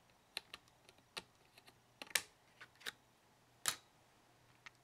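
Scattered light clicks and taps, about a dozen at uneven spacing, the loudest a sharp click about three-quarters of the way through.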